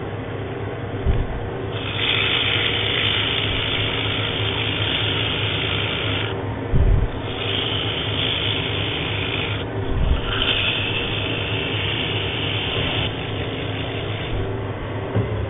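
Sandpaper hissing against a hardwood base spinning on a wood lathe, in three long passes of several seconds each with short breaks between, over the steady hum of the lathe. The sanding is working out grain tear-out on the turned surface. A few dull low thumps, the strongest about midway.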